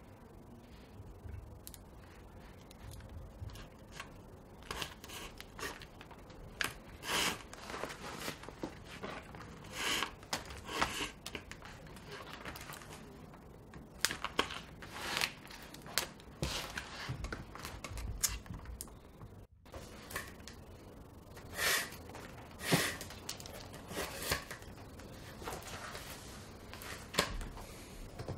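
Thread being drawn tight through leather as a shoe is hand-stitched with an awl: a series of short rasping pulls, irregularly spaced a second or two apart.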